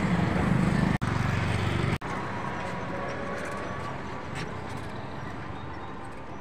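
Roadside traffic noise: a vehicle engine hums close by for the first two seconds, then a steadier, slowly fading rumble of traffic. The sound drops out briefly twice, about a second apart.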